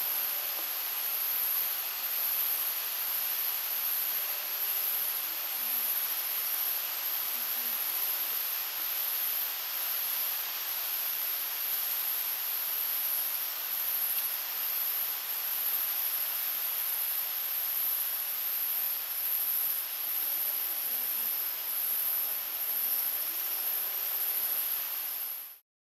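Night rainforest insect chorus: a steady, high-pitched drone of crickets or similar insects over a general hiss. It cuts off suddenly near the end.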